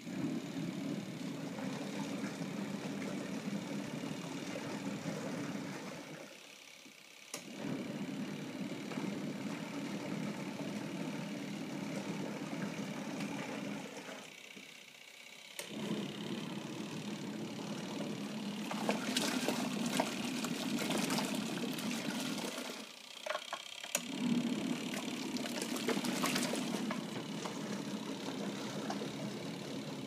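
Panda compact portable washing machine running a wash: its motor hums in runs of about six to seven seconds, stopping for about a second between runs, while water sloshes in the tub, louder in the second half.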